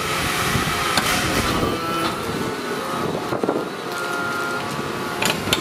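Battery-electric mini excavator's hydraulic system running with a steady whine as the boom moves its hydraulic breaker hammer, with a few sharp metal clanks near the end.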